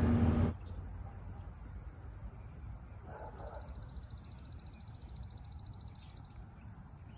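Half a second of engine and road noise inside a moving pickup cab, then a steady, high-pitched chorus of summer insects with a fine, rapid pulse.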